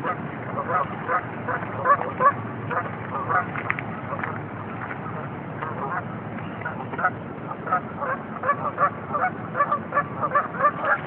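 Canada geese honking, many short calls one after another, coming thicker in the second half, over a steady low background rumble.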